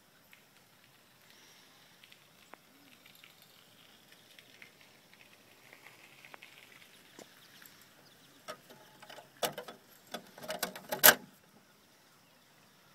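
Sliding side door of a pressed-steel Buddy L toy milk truck being slid shut by hand: a run of clicks and rattling metal scrapes, ending in a sharp knock near the end.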